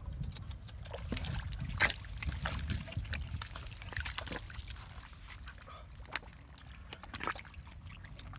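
Wet squelches, splats and small splashes of hands grabbing fish in shallow water and mud, coming as scattered short sounds with a few louder splats.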